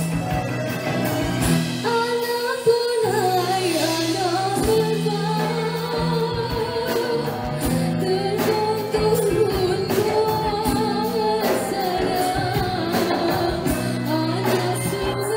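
Live band playing a Malay pop-traditional song, with a woman singing the lead line from about two seconds in over steady percussion.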